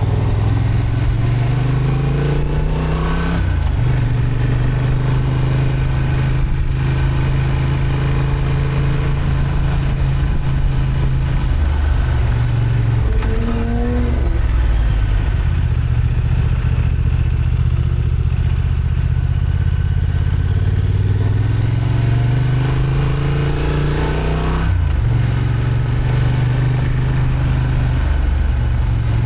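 Honda XL750 Transalp's parallel-twin engine pulling steadily on a climb. Its pitch rises and drops back sharply about three seconds in, again about twelve seconds in, and near the end.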